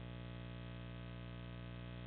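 A steady low hum made of many stacked tones, unchanging throughout, with no call or other event in it.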